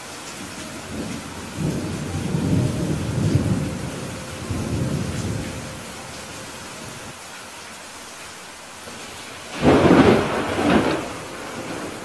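Steady rain hiss with thunder: a low rolling rumble through the first half, then a louder, sharper thunderclap near the end that rolls off over about a second.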